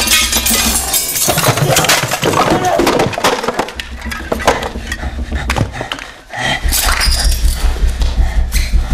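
Glass breaking and shards clinking in a dense series of sharp strikes, over a low sustained droning tone; the level dips briefly about six seconds in.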